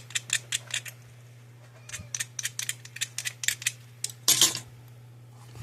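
Quick runs of small metallic clicks, about five a second, from a hand tool working a thin wire lead, with a short scrape about four seconds in. A steady low hum runs underneath.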